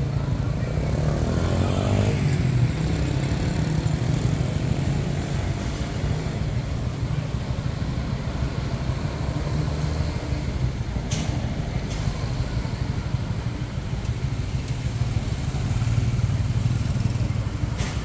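City street traffic: car and motorcycle engines running and passing at a junction, a steady low rumble with one vehicle swelling past about two seconds in.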